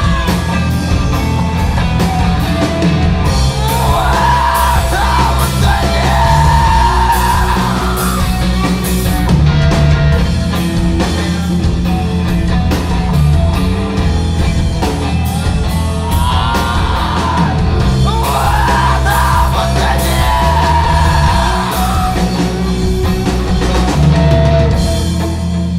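Rock band playing loudly, with a singer's yelled vocal lines coming in twice, about four seconds in and again about sixteen seconds in.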